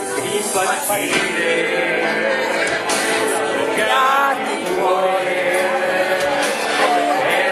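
Music with singing, at a steady, loud level.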